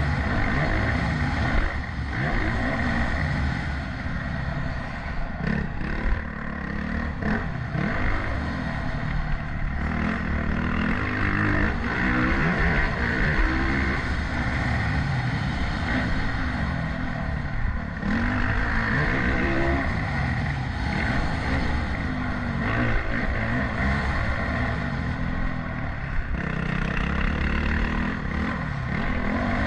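Motocross bike engine revving up and dropping off repeatedly under race riding, with a few short knocks.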